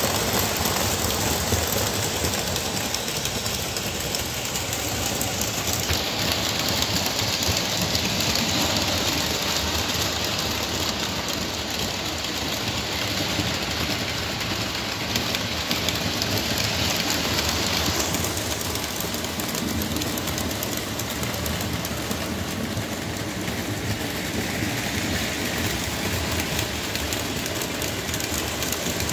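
Lionel O-gauge electric model trains running on tubular three-rail track: a steady rumble and rattle of metal wheels on the tin rails and the locomotives' motors.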